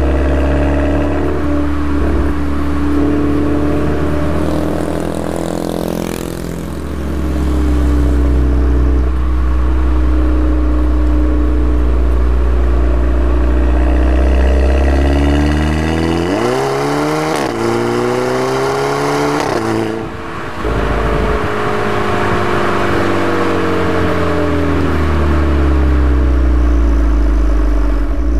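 Turbocharged 2.0-litre four-cylinder of a VW Golf GTI MK6 through an APR RSC turboback exhaust, heard while driving. The engine note falls away around six seconds in. From about sixteen seconds the revs climb hard under wide-open throttle, broken by quick DSG upshifts near eighteen and twenty seconds, each with the brief 'DSG fart' from the exhaust, and then the note eases off.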